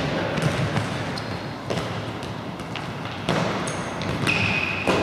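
Futsal balls being kicked and bouncing on a hard sports-hall floor, sharp thuds every second or so with hall echo, and a few short high squeaks, the loudest near the end.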